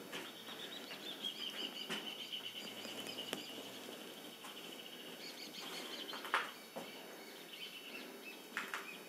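A bird outside calling: one long, high, rapidly pulsing call lasting about six seconds, then a few shorter calls near the end. A few sharp clicks and knocks are heard over it, the loudest about six seconds in.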